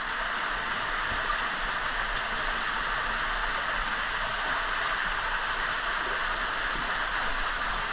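Creek water cascading down a narrow rock chute into a pool: a steady, even rushing.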